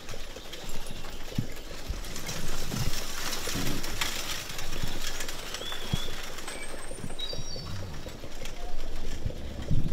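Ambience of a horse-drawn carriage ride through woods: a steady rustling rumble of the moving carriage with scattered hoof clops, and a few short bird chirps in the second half.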